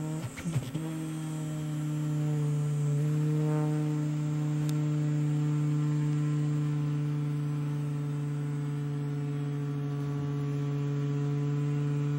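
Hexbug Nano toy bug's tiny vibration motor buzzing in a steady low hum. It wavers with a few scuffs in the first second as a cat paws at the bug, then holds steady.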